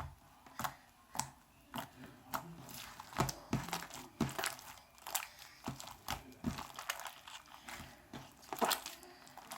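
Homemade slime being kneaded and stretched by hand, giving irregular sticky clicks, pops and crackles several times a second.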